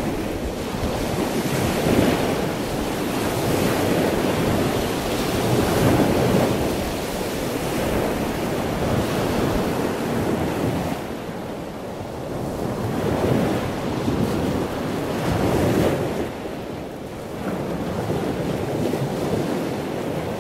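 Wind buffeting the microphone over rushing sea water, swelling and easing every couple of seconds.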